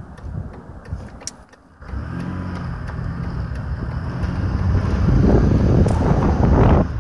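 2001 Buick Century's 3100 V6 engine, after a few light clicks, picking up suddenly about two seconds in and getting steadily louder as the car accelerates, with a rougher rush of noise near the end.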